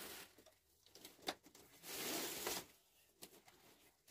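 Plastic bag rustling as it is handled and hung from a beam, with a sharp click about a second in and a few light knocks near the end.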